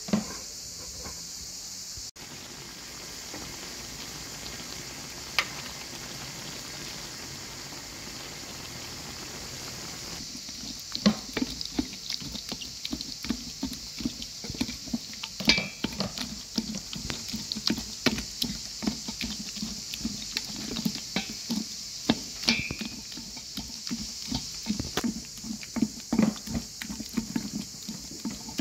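Boiled cherry plums being pressed and rubbed through a stainless steel colander with a wooden spatula: wet squelching and scraping in quick irregular strokes, with a sharp click now and then. It begins about a third of the way in; before that there is only a steady hiss.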